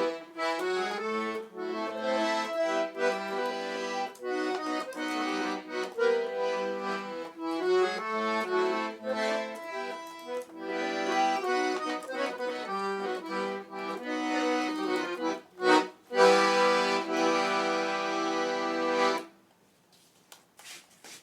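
Accordion playing a forró tune, melody over chords, ending on a long held chord that stops about three seconds before the end, followed by faint handling rustle.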